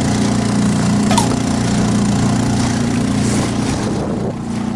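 Small 2-horsepower outboard motor running steadily at a constant pitch, pushing a small boat along. There is a brief click about a second in, and the level dips slightly near the end.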